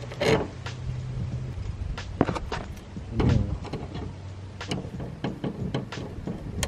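Number plate and its fittings being handled against the car while the plate is offered up to the mount: a few knocks and clicks, loudest near the start, about two seconds in and a little past three seconds, over a low steady hum.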